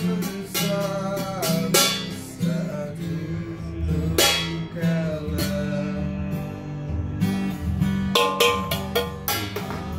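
Acoustic guitar strummed in a steady rhythm, playing the chords of a slow pop ballad with no words sung.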